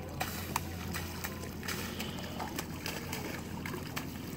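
Water sloshing and splashing lightly as a hooked eagle ray flaps at the surface, with a few short clicks over a low steady hum.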